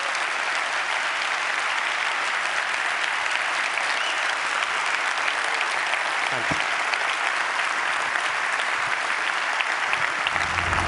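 Large auditorium audience applauding steadily after a talk. Music begins to come in near the end.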